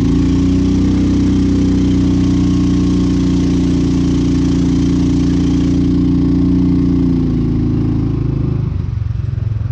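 440cc DuroMax single-cylinder gas engine swapped into an EZGO golf cart, running steadily under throttle as the cart drives along, its note easing off and dropping about eight seconds in.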